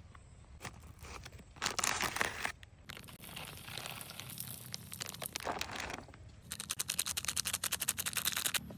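Crinkling and rustling handling noises in irregular bursts, then a quick run of sharp scraping strokes near the end.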